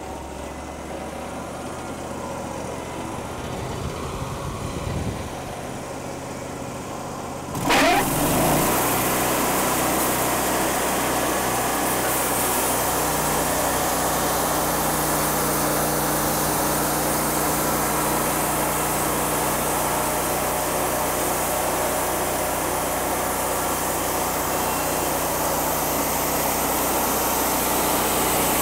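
Wood-Mizer portable bandsaw mill's engine idling, then about eight seconds in it comes up to speed with a sudden jump in level as the band blade engages. The blade then runs steadily through the log in a long cut, loud and even.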